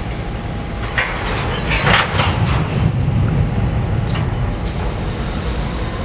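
Freight train rolling slowly through a rail yard: boxcars and CSX GP40-2 and GP38-2 diesel locomotives passing close by, a steady low rumble of engines and wheels on rail. Brief harsher wheel-and-rail clatter about one and two seconds in.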